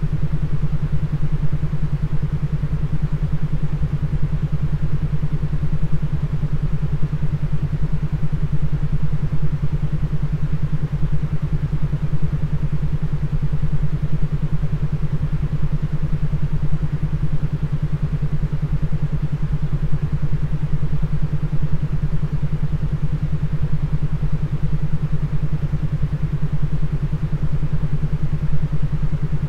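Brainwave-entrainment beat track: a steady low hum that pulses rapidly, over a constant rushing noise, unchanging throughout.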